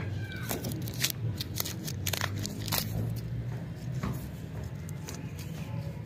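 Lollipop wrapper crinkling and tearing as it is peeled open by hand: a quick run of sharp crackles, densest in the first three seconds, then sparser rustling.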